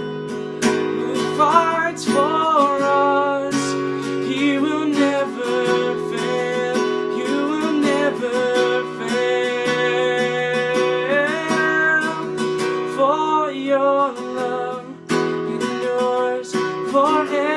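Acoustic guitar strummed steadily in a slow worship-song accompaniment, with a voice singing a held, wavering melody over it.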